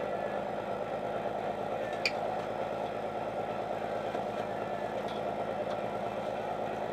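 Fishing boat's engine running steadily at a low, even speed, with a sharp knock about two seconds in and a few fainter knocks later.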